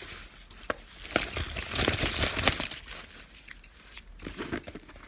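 Fabric duffel bag and its straps rustling and crinkling as they are handled, loudest from about one to three seconds in, with a few light clicks and taps around it.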